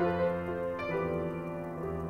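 Background music: held keyboard chords, changing about once a second.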